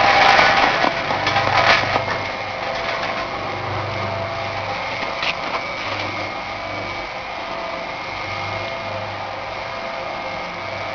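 Peanut roasting machine running: a steady mechanical whir with a thin high whine, and a few clatters in the first two seconds.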